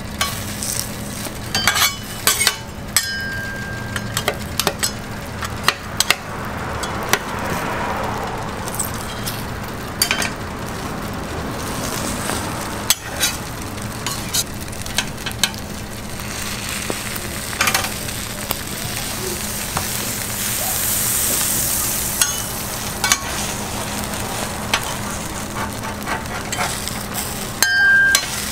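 Egg mixture frying on a flat-top griddle inside a metal mold, a steady sizzle, with scattered sharp clinks and scrapes of metal spatulas against the mold and griddle, a louder burst of them near the end. A steady low hum runs underneath.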